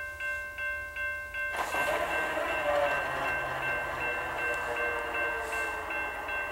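A railroad crossing bell dings about two and a half times a second. About a second and a half in, the loud running of the approaching CSX diesel locomotives and their intermodal train rises over it, with the bell still heard beneath.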